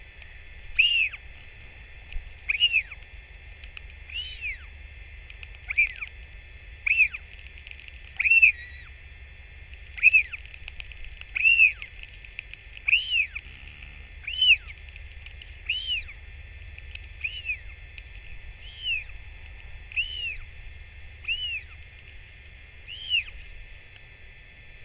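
A bird repeating a short, arched chirp about every one and a half seconds, some sixteen times in a row.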